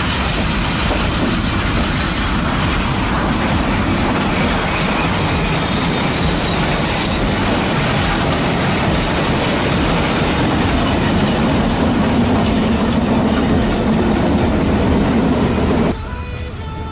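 Toy model train running along the track, a steady loud rattle and rumble of wheels and motor, which drops away abruptly near the end.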